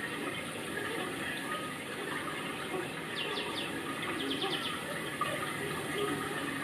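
Steady rush of running water, with a small bird calling in two quick runs of short descending notes about three and four seconds in.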